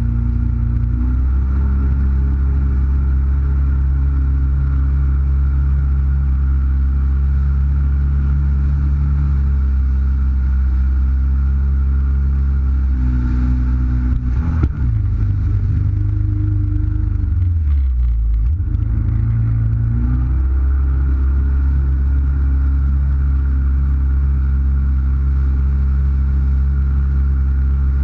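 Jet ski engine running steadily at low speed. About halfway through it speeds up briefly, with a short knock, then drops to a lower note for a few seconds before going back to its steady run.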